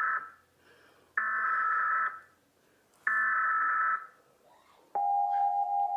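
Emergency Alert System header: three buzzing bursts of digital data tones, each about a second long with a second's gap between them. About five seconds in, a steady attention tone begins.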